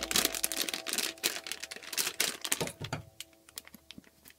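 Plastic Play-Doh Soft-Pack pouch crinkling and crackling as it is handled: a quick, irregular run of crackles that thins out in the last second or so.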